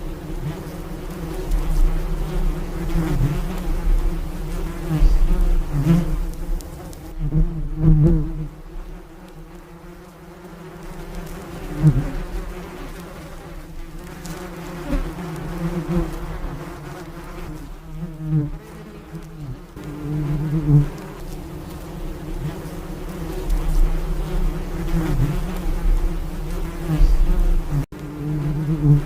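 Bees buzzing: a steady low hum of many wingbeats that swells and fades every few seconds as bees fly close past the microphone.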